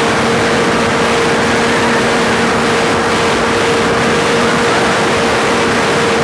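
Fuel-burning engine of an RC PC-9 model plane running at a steady high pitch, heard close from an onboard camera, with a heavy rush of wind over the microphone.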